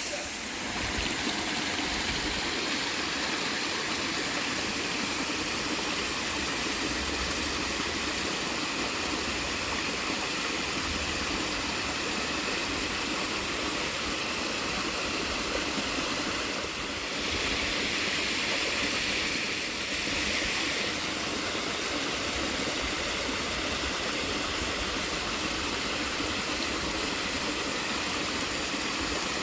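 Steady rush of water from a small waterfall, an even hiss that turns brighter and harsher for a few seconds a little past the middle.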